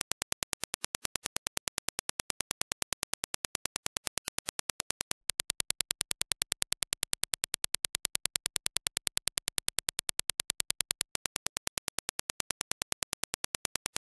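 Dirac impulse test signal: a rapid, even train of sharp clicks. About five seconds in, it switches to the same clicks reproduced through Audeze LCD-2 planar magnetic headphones and recorded by a measurement dummy head, slightly louder. About eleven seconds in, it switches back to the reference clicks.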